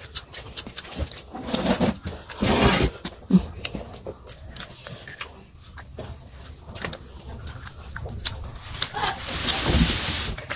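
Close-up mukbang eating sounds: wet chewing and lip smacks over chicken liver and gizzard adobo with rice, eaten by hand. Two longer breathy hisses, about two and a half seconds in and near the end, as the eaters draw air against the chili heat.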